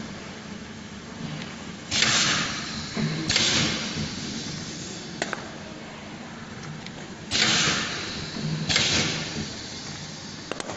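Bread filling depositing machine running as it pipes filling through a row of nozzles, over a steady low hum. Two loud hisses come about a second apart, and the pair repeats about five seconds later, with a few sharp clicks in between.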